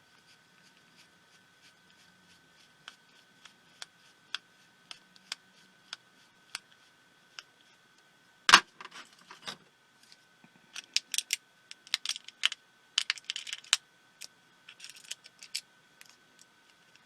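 Scattered light clicks and taps of small tools against small plastic and metal parts being taken apart, with one louder knock about halfway through and quick flurries of clicks in the second half.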